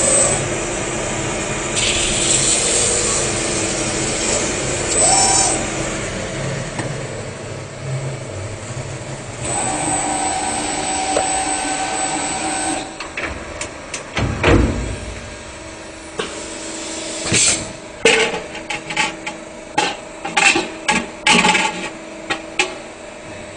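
CNC metal spinning machine running as its roller forms a metal reflector on the spinning mandrel, a steady mechanical din with a held whine from the metal. In the last few seconds, a quick run of sharp clacks and knocks as the part is handled.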